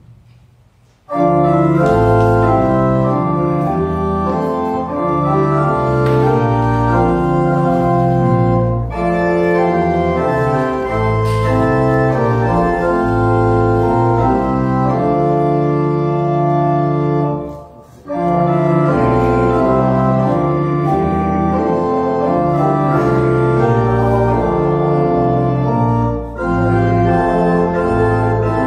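Church organ playing a hymn in slow, held chords, with short breaks between phrases; the deepest break comes about 18 seconds in.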